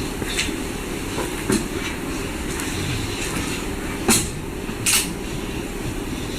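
A steady low rumble with a few sharp clicks, one about a second and a half in and two more around four and five seconds in.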